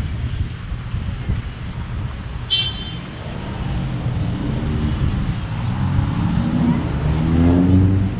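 City street traffic: a motor vehicle's engine climbing in pitch and growing louder as it accelerates past, over a steady traffic rumble. A brief high-pitched chirp sounds about two and a half seconds in.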